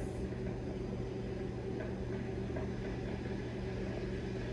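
A steady low hum over a faint even hiss, with no clear events.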